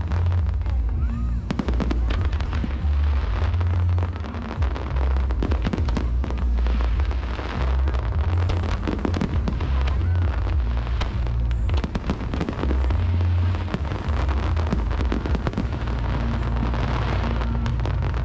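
An aerial fireworks display: shells bursting and crackling in many quick, irregular bangs throughout, over loud music from the show's soundtrack.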